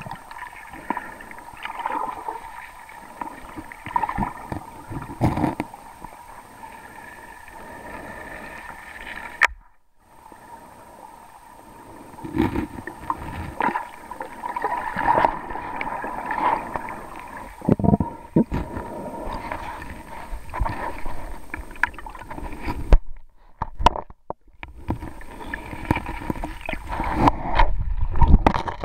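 River water heard underwater through a waterproof camera's sealed body: muffled gurgling and rushing with irregular knocks. The sound drops out briefly twice.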